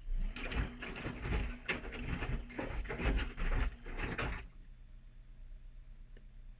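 Whirlpool washing machine in its main wash: the motor turns the drum with a steady hum while the wet laundry sloshes and thuds inside, then the drum stops after about four seconds.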